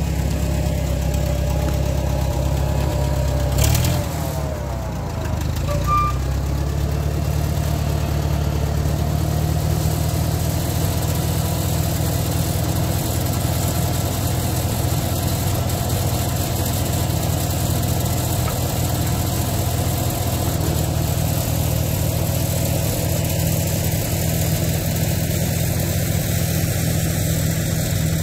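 1967 International Harvester 424 tractor engine running steadily while the tractor pushes logs with its rear-mounted blade. A short knock sounds about four seconds in, and the engine note briefly drops and shifts before settling again.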